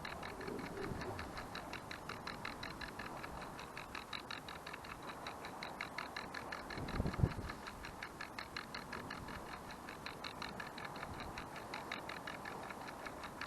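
Clockwork mechanism of an IKEA kitchen timer, used as a panorama mount, ticking rapidly and evenly as it turns the camera. There is a single low thump about halfway through.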